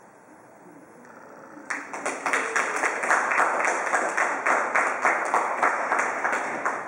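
A small group of spectators clapping at the close of a dressage test. The clapping starts about two seconds in and eases off near the end.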